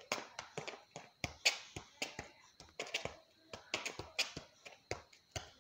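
Football being juggled: an irregular run of sharp taps, about three or four a second, as the ball strikes the foot and knee.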